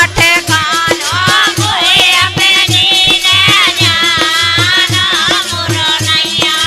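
Indian folk song: a wavering sung melody over a steady, even drum beat.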